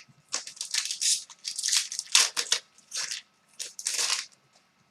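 Trading cards and their pack wrappers being handled, heard as irregular crinkling and rustling in quick bursts.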